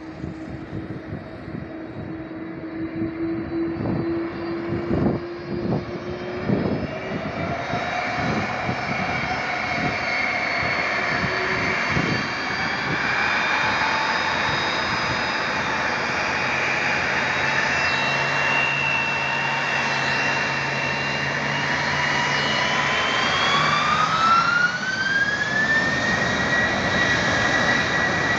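Twin jet engines of an Airbus A330-200 spooling up for take-off: a steady roar grows louder while the engine whine climbs in pitch, rising sharply near the end. Gusts of wind thump on the microphone in the first several seconds.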